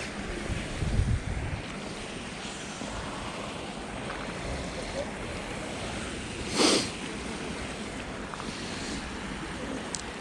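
Wind buffeting the microphone over steady outdoor noise, with a gust about a second in and one short, sharp knock or splash about six and a half seconds in.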